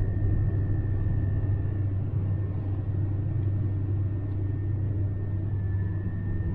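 Cabin noise of a Lada Granta sedan (8-valve 90 hp engine) cruising at about 104 km/h on smooth asphalt on stock Kama summer tyres: a steady low drone of road, tyre and engine noise, damped by full sound insulation. A faint steady high tone runs above it.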